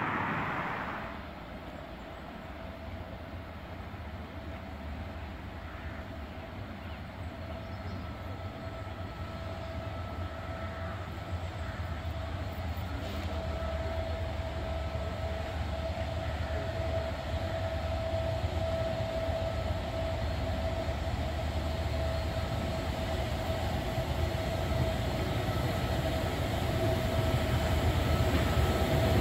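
LNER Peppercorn A1 steam locomotive 60163 Tornado approaching: a low rumble that grows steadily louder as it nears, with a steady high tone throughout.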